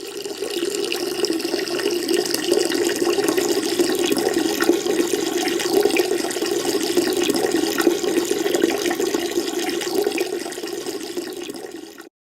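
Peeing sound effect: a steady stream of liquid splashing into toilet water, running evenly and then tailing off just before the end.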